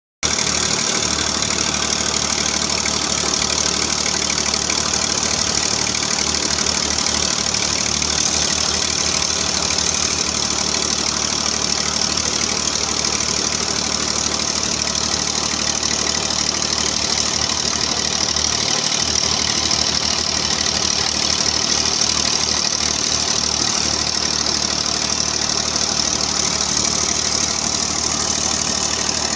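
Old tractor's diesel engine, bonnet off, running steadily with an even low beat.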